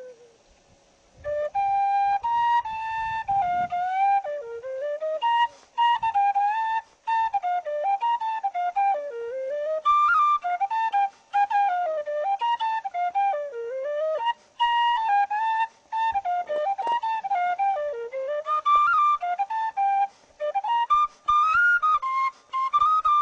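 Tin whistle playing a lively Irish traditional tune, taking up about a second in after a short pause, in quick runs of notes with brief breaks between phrases.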